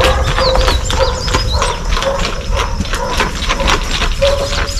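Young horse's hooves knocking on the ground in an uneven rhythm as it circles, with short high bird chirps scattered through.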